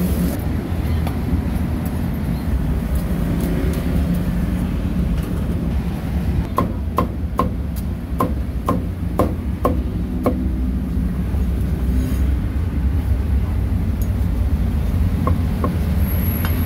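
A cleaver chopping roasted pork on a wooden chopping block: a quick run of about ten chops at two to three a second midway, each a short ringing knock, then two more chops near the end. A steady low background rumble runs underneath.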